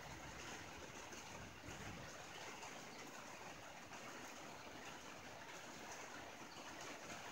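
Faint, steady rain on a tin roof: an even hiss of many small drops.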